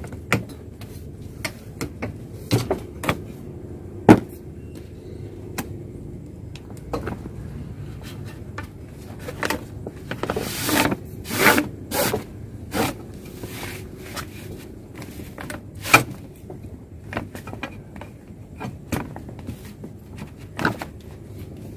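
An ABS-coated iron pipe being worked into the cloth pocket of a cotton grow bag. Scattered knocks and clicks of the pipe and its fittings, with a rasping scrape and rustle of pipe against fabric about halfway through. The sharpest knocks come about 4 s and 16 s in.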